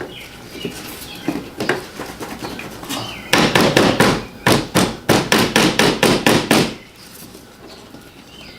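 Metal hammering on a stuck windshield wiper arm to knock it loose from its pivot shaft, where rust holds it fast: light taps at first, then a quick run of about a dozen hard blows, roughly three a second, which stop suddenly.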